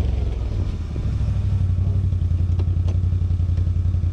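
ATV engine running steadily at low revs with an even, pulsing exhaust note as the quad drives off across rough ground. A couple of light clicks sound about two and a half to three seconds in.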